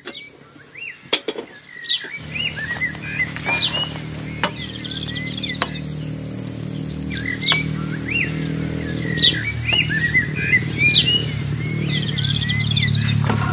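Birds chirping repeatedly, short high arching calls every second or so, over a steady low hum that comes in about two seconds in.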